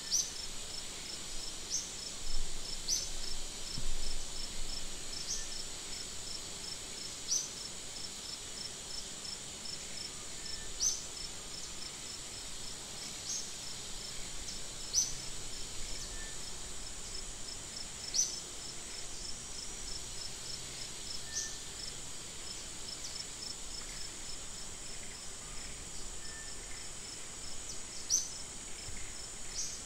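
Steady insect chorus: a continuous high buzz with a fast pulsing trill, and short high chirps repeating every two seconds or so. A few brief soft bumps come in the first few seconds.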